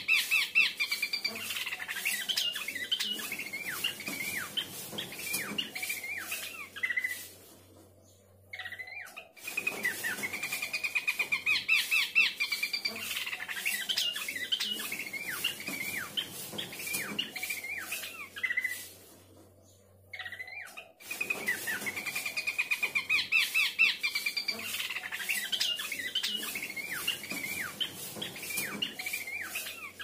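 A pelanduk semak (Horsfield's babbler) singing in three similar bouts about ten seconds apart. Each bout opens with a long, fast trilled note and runs into a rapid chatter of varied high notes, with a brief pause before the next.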